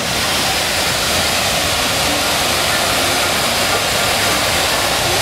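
Steady rush of a wide cascade of water pouring over a curved wall into a pond.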